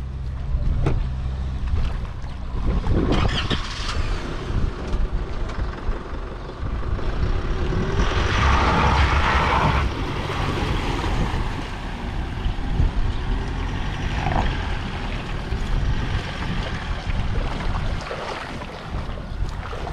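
Pickup truck's engine running under load as it hauls a boat on its trailer up out of the shallows, with a burst of water splashing off the hull and trailer around the middle.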